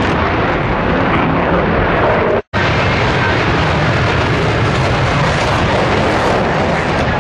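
Loud, steady jet noise from JASDF F-15 twin-engine fighters flying past. The sound cuts out completely for a split second about two and a half seconds in.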